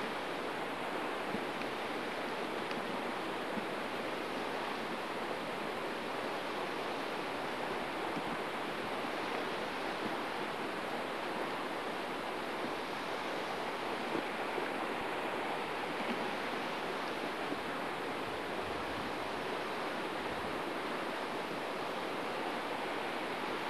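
Steady rush of flowing river water, an even noise without breaks.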